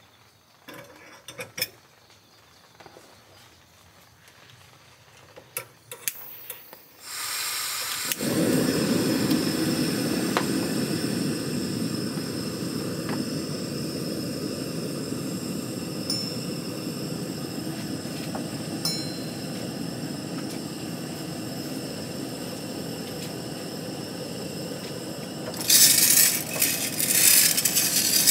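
A few metal clinks as a hand-cranked mesh-drum coffee roaster is set on its stove, then about seven seconds in a gas burner lights and runs with a steady rushing noise. Near the end the drum is cranked and the green coffee beans rattle and clatter loudly inside the wire mesh over the burner.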